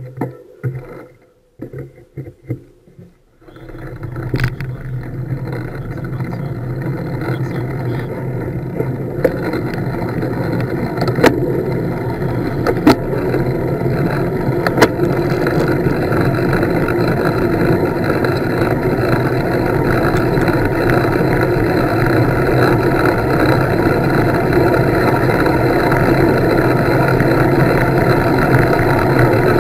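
Wind rushing over a handlebar-mounted camera's microphone as a road bike picks up speed downhill, starting after a few light knocks and growing steadily louder. A few sharp clicks stand out in the first half.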